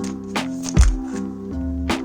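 Background music: held pitched notes over a steady beat with a deep kick.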